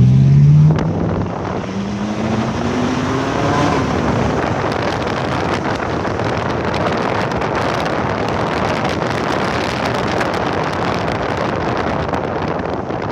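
Ferrari 458 Italia's V8 engine accelerating hard. Its note climbs, breaks off under a second in as it shifts gear, then climbs again for about two seconds. After that comes a steady loud rush of wind and road noise.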